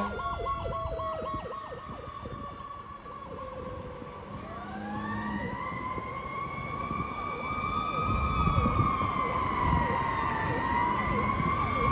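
Fire engine siren: a fast yelp in the first couple of seconds, then a slow wail that climbs from about four seconds in, dips near the ten-second mark and rises again, over the rumble of traffic.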